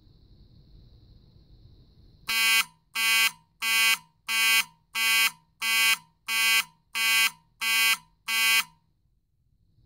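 Wheelock 34-6 six-volt fire alarm horn sounding a pulsed pattern: ten short, loud buzzing blasts at about one and a half a second, starting a couple of seconds in and stopping near the end.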